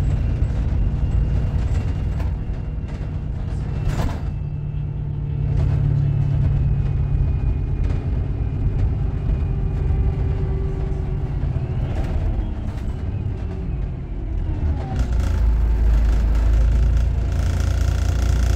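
Cabin sound of a VDL Berkhof Ambassador city bus with a Voith automatic gearbox under way: a steady low engine and drivetrain rumble with a few sharp rattles and knocks. The low drone grows heavier about three quarters of the way through as the bus pulls harder.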